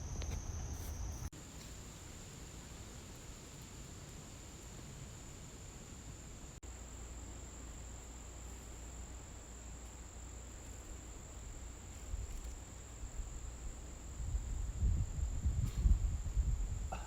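Steady high-pitched insect chorus, typical of crickets in late summer, with a low rumble on the microphone growing louder near the end.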